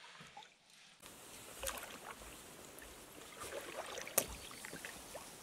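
A canoe being paddled on calm water: faint swishes and drips of the paddle strokes, with a couple of short sharp clicks about two and four seconds in.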